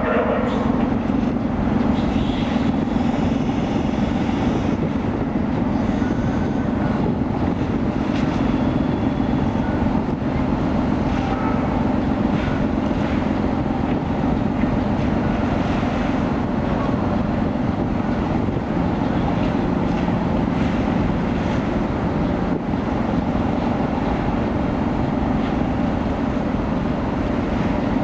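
The car ferry Blueline's engines give a steady low drone as the ship manoeuvres alongside the quay while berthing.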